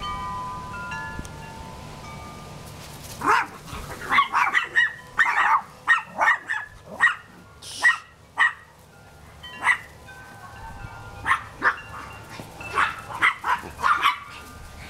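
Maltese puppies yapping: a string of short, high-pitched yips starting about three seconds in, with a brief lull near the middle. Wind chimes tinkle underneath, plainest at the start.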